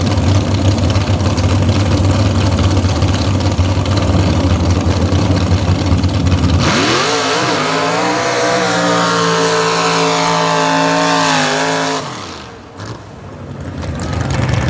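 Engine of a Chevrolet mega mud truck running loud and rough, then revving up sharply and holding high revs as the truck launches down a dirt track with its tyres spinning; the sound breaks off suddenly about twelve seconds in and the engine builds again near the end.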